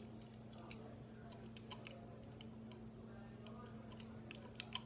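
Scattered light clicks and taps, a few at a time, coming more often near the end, over a steady low hum.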